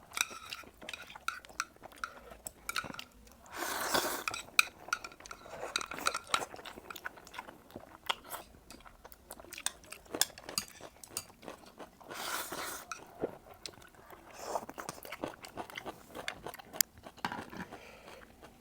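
Close-miked eating of octopus: chewing and biting, with frequent sharp clicks of utensils against a dish. Twice, about 4 and 12 seconds in, a longer rush of noise stands out.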